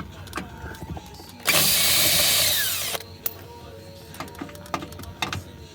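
A cordless power tool with a 10mm socket runs for about a second and a half, backing out an engine splash-shield bolt. Scattered clicks of the tool and bolts being handled come before and after.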